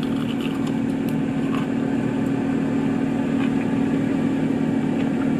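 A steady low mechanical hum, like an idling engine, with a few faint small clicks and handling noises over it.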